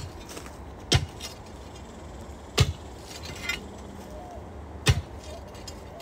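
Steel digging bar driven down into a post hole, striking old concrete and hard ground with four sharp metallic blows at uneven intervals of one to two seconds.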